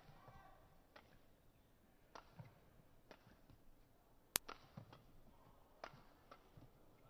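Faint, crisp strikes of badminton rackets hitting the shuttlecock, about one a second through a rally, mixed with soft footfalls of players lunging on the court. One much sharper click about four seconds in is the loudest sound.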